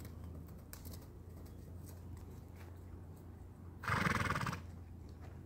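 One short, rough, fluttering sound from a horse, about four seconds in and lasting under a second.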